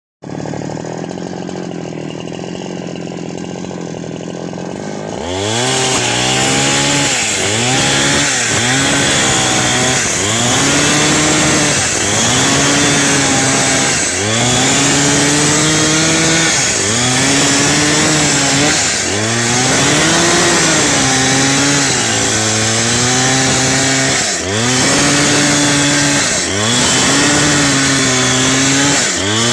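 Two-stroke chainsaw idling for about five seconds, then opened up to high revs. It runs loud at full throttle, its pitch sagging and recovering every couple of seconds, and falls back right at the end.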